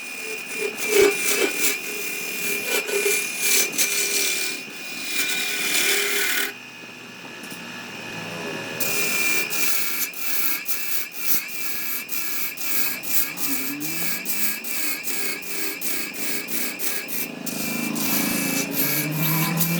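Tools working wood: a power tool's steady, slightly wavering whine with the tool rubbing and scraping on the wood, and about halfway through a rapid, regular series of strokes, several a second.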